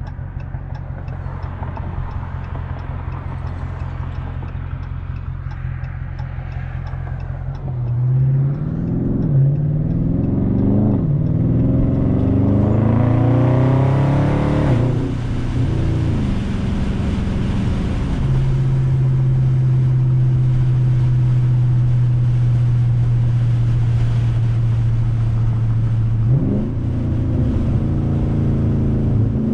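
Exhaust of a tuned 2020 Dodge Charger Scat Pack's 6.4-litre HEMI V8 with the mid muffler deleted. It runs steadily at low revs, then about eight seconds in accelerates hard, the pitch climbing and dropping back at each upshift, settles into a steady drone at cruise, and climbs again near the end.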